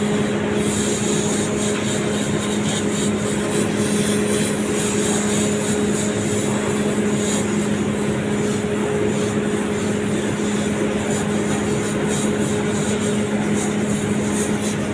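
Air compressor running steadily: a constant low hum over an even rushing noise.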